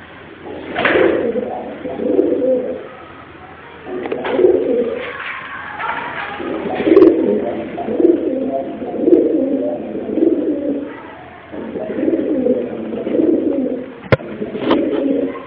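Domestic pigeons cooing, in several runs of repeated coos with short pauses between them. Two sharp clicks sound near the end.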